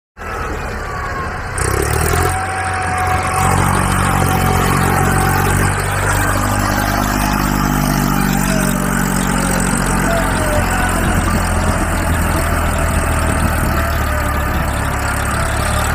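Tractor engine running steadily, a real engine's sound rather than anything the plastic toy tractor could make, getting louder once, about a second and a half in.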